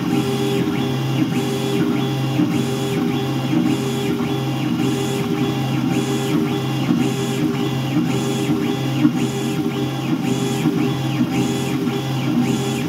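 Langmuir Systems MR-1 CNC mill cutting at high feed: the axis drive motors whine in pitch sweeps that repeat about every two-thirds of a second as the toolpath loops, over the steady sound of the spindle and end mill cutting.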